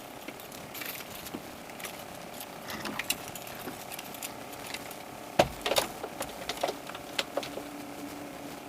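Scattered knocks and clicks, the loudest about five and a half seconds in, followed by a quick cluster of them, over a faint steady hum.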